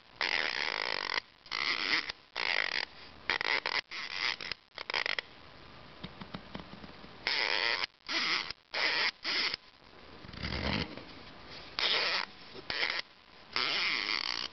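Orbit Saturn 3 plastic rotor sprinkler head handled and its turret turned by hand right at the microphone: a series of short rubbing and scraping noises, each under a second, with a dull bump a little past the middle.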